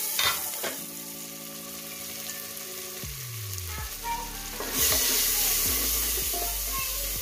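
Chopped onions sizzling in hot coconut oil in an open pressure cooker, stirred with a spatula; the sizzle gets louder about five seconds in. A steady background hum slides down in pitch and stops about three seconds in.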